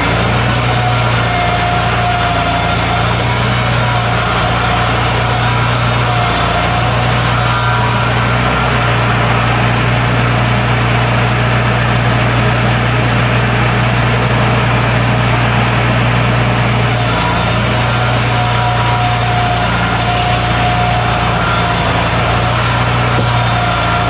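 Engines of a Wood-Mizer LT40 hydraulic sawmill and EG200 board edger running at a steady drone as boards are fed through the edger. A higher whine comes and goes over the drone as the boards are cut.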